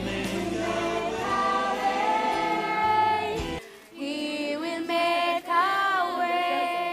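Voices singing together unaccompanied, like a small choir. The singing breaks off about three and a half seconds in and picks up again half a second later with long held notes that waver in pitch.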